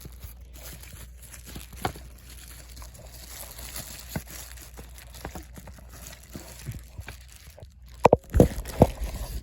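Handling noise from unpacking a camcorder: faint crinkling of packaging and light clicks, with a few louder knocks near the end.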